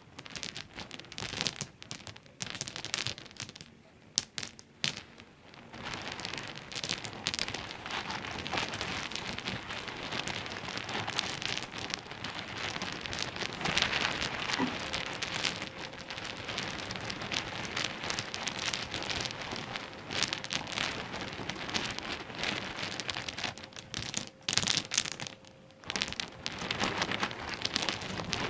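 Small pebbles clicking and rattling against one another in a dense stream of tiny clicks, with brief lulls about four seconds in and near the end.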